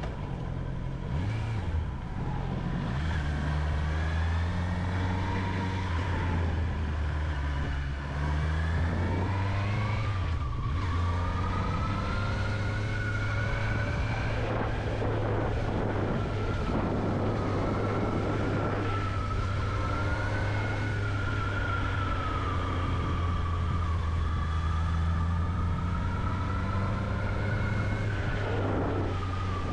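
Honda CB650R's inline-four engine running on the move, its pitch rising and falling with the throttle and dipping briefly twice in the first eight seconds, over steady rushing wind noise.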